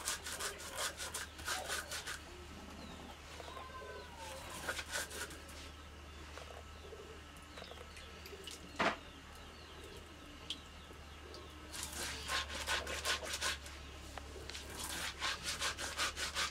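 Stone hand-grinder, a round grinding stone rubbed over a flat stone slab to crush dry seeds, making quick rough rasping strokes. The grinding runs for the first two seconds, pauses, and starts again about twelve seconds in. During the pause there are a few faint bird chirps and one sharp knock near nine seconds.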